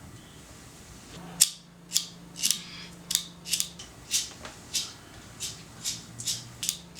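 Loud open-mouthed gum chewing: a run of short wet smacks, unevenly spaced at about two a second.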